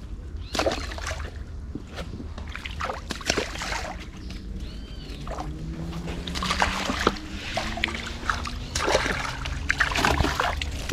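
Small tilapia thrown one at a time from the bank into shallow water, each landing with a short splash, irregularly, several in quick succession near the middle and toward the end.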